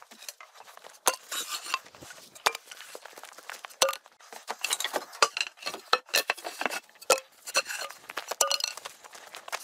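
Small metal objects clinking and rattling: a busy run of irregular sharp clicks with a light ringing after some of them.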